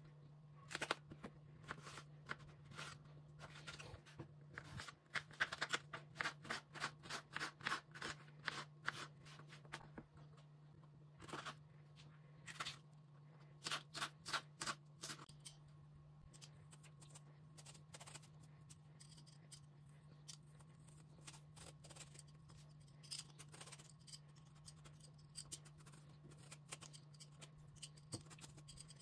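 Kitchen knife cutting and chopping vegetables on a wooden cutting board: quick runs of sharp taps of the blade on the board, thinning out to scattered taps in the second half.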